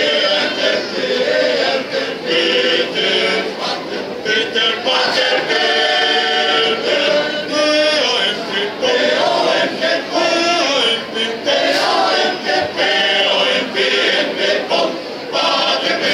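Male choir singing a cappella, sustained sung phrases with short breaks between them.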